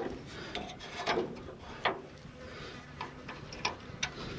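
Irregular sharp clicks and knocks of metal parts and hand tools being handled on the tractor's front end, about half a dozen in all, the loudest a little past one second in and near two seconds.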